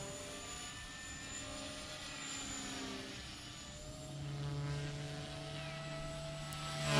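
Blade Fusion 180 Smart electric RC helicopter flying fast sport passes: the whine of its rotor and motor, gliding up and down in pitch as it flies around.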